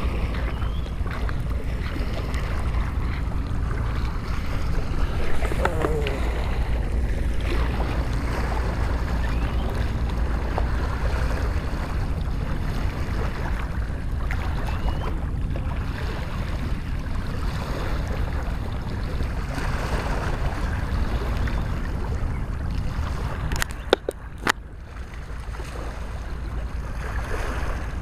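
Steady low rumble of wind on the microphone over water lapping against the rocks of a breakwater. Two sharp clicks come close together about three quarters of the way through.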